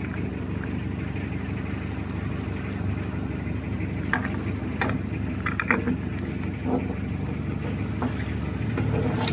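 Steady low background rumble, with a few faint clicks and knocks from a plastic junction box and camera cable being handled.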